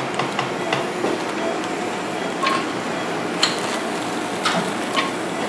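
Steady operating-room background noise with several sharp clicks from the da Vinci surgical robot being docked to the single-site port. Two of the clicks are followed by a short high beep.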